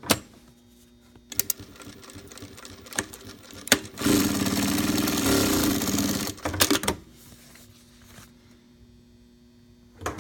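SEWPRO 5410-7 needle-feed industrial sewing machine sewing a short seam at speed for about two and a half seconds, a fast steady run. A few sharp mechanical clicks come before the run and just after it.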